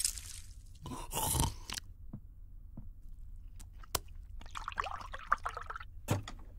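Kitchen handling noises: a brief scraping rush about a second in, then several sharp clicks and knocks, a short rustle, and another knock near the end, as of a pan, plate and cabinet door being handled.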